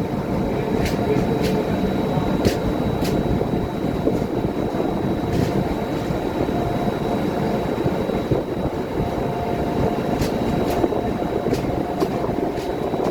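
Train running on the rails: a steady rumble with irregular sharp clicks and a faint steady high tone.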